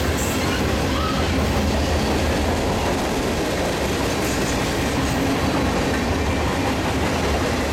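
Norfolk Southern freight train cars rolling past on the track: a steady, loud rumble of wheels on rail.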